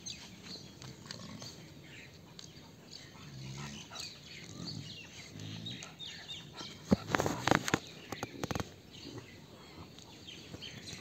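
Chow chow puppies playing, making soft low vocal sounds, with a cluster of sharp knocks and scuffles about seven to eight and a half seconds in.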